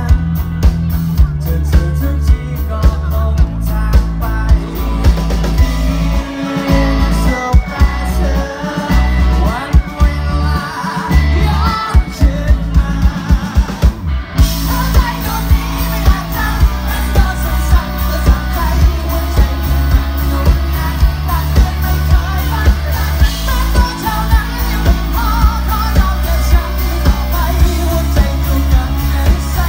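Rock band playing live through a PA: a male singer, electric guitar, keyboard and a steady drum beat. About six seconds in the band drops to a sparser passage, and about fourteen seconds in the full band comes back in with cymbals.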